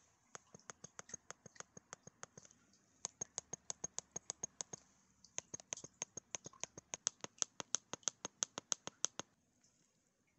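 Control-panel buttons of a Donnerberg NM090 shiatsu massager being pressed in quick succession, giving short, high ticks about six a second in three runs with brief pauses, stopping about nine seconds in.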